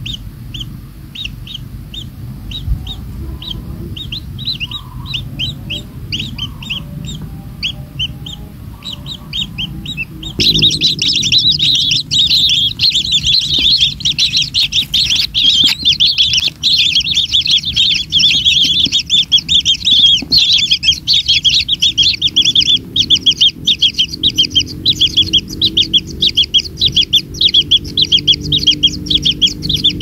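Kingfisher nestlings' begging calls: quick high chirps in a steady rhythm, then, about ten seconds in, a sudden burst into loud, dense chirping that keeps up while the parent feeds them. A low hum runs underneath, and a lower pitched sound joins near the end.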